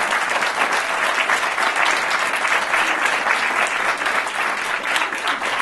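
A roomful of guests applauding, loud and steady, many hands clapping at once.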